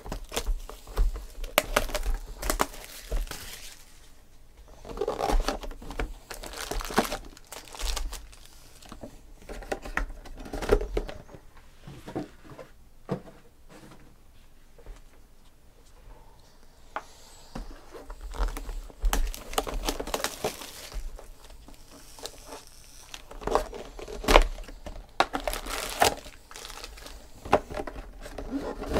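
Plastic shrink wrap being torn and crinkled off a trading card box, and foil card packs being handled and stacked, in irregular bursts of crinkling with short pauses between.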